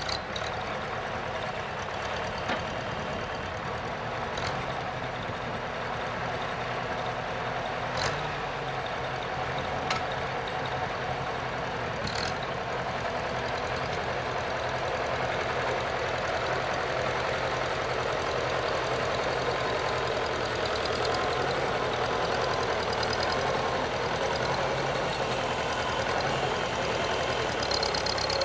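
Farmall Super C tractor's four-cylinder gasoline engine running steadily while dragging freshly tilled dirt, growing slowly louder as the tractor comes closer. A few sharp clicks sound over it.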